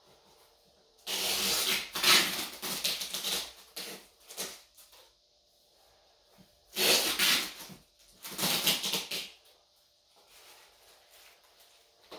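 Packaging being handled during unboxing: rustling and scraping in three bursts, a long one about a second in and two shorter ones past the middle.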